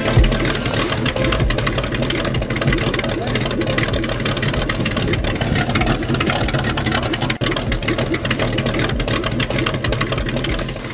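Inboard V8 engine of a wooden ski boat idling steadily.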